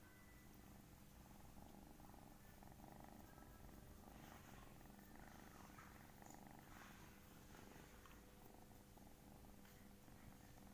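Kitten purring faintly and steadily while being petted, with a few soft rustles about halfway through.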